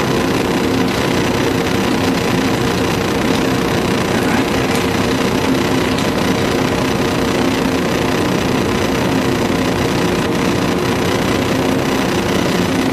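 Steady hum and hiss of operating-room ambience, unchanging throughout.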